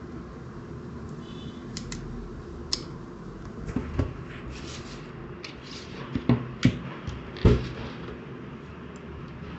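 Irregular clicks, taps and knocks from handling a smartphone and its packaging, the loudest knock about seven and a half seconds in, over a steady low hum.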